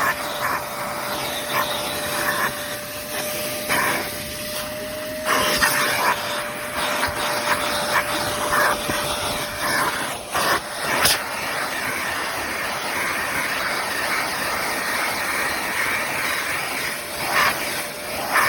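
Amazon Basics 4-gallon stainless steel wet/dry shop vacuum running: a loud rush of air over a steady motor tone, rising and dipping in level as it sucks, then cutting off suddenly at the very end.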